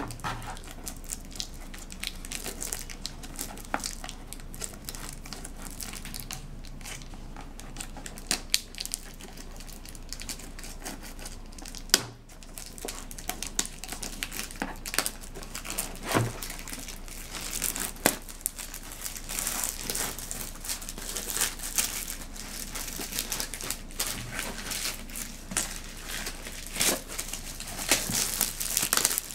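Packaging being opened by hand: crinkling and rustling of wrapping with scattered clicks and a few sharper knocks, the crinkling growing denser in the last third.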